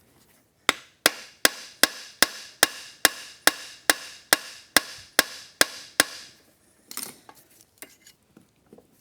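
A hammer striking steel fourteen times in an even rhythm, a little over two blows a second, each blow ringing, to drive off a tight oil pump gear on a motorcycle engine. A few light metallic clinks follow.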